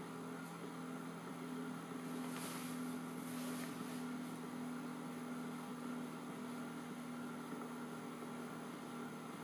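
Small precision spinning top spinning on a magnetic base, a steady whirring hum with two brief hissy scrapes about two and a half and three and a half seconds in.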